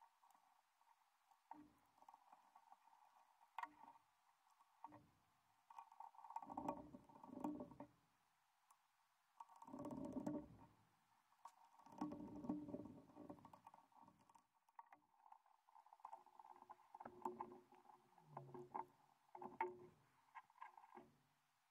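Faint handling noises from small plastic and metal RC car parts: soft rubbing and scraping in several short stretches, with scattered light clicks, as the steering servo is pressed back into the 1:18 scale chassis.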